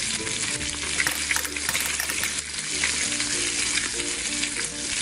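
Steady sizzling of a steak frying in a pan.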